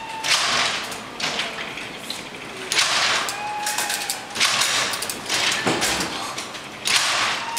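Babbage Difference Engine No. 2, a hand-cranked mechanical calculator, being cranked: its gears, figure wheels and columns clatter in repeated bursts, roughly one every second or so.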